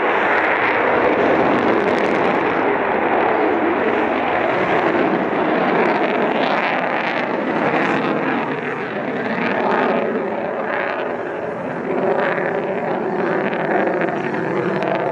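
Loud, steady jet engine noise from an F-22 Raptor's twin turbofan engines as the fighter climbs overhead.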